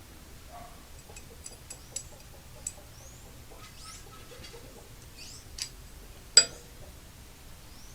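Scattered light clicks and ticks with a few faint high chirps, and one sharper click about six and a half seconds in.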